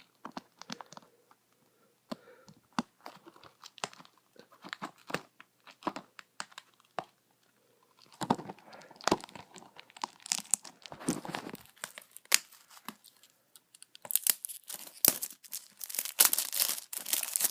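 Plastic shrink-wrap being torn and crinkled off a Blu-ray case: irregular crackles and snaps that grow denser and louder in the last few seconds.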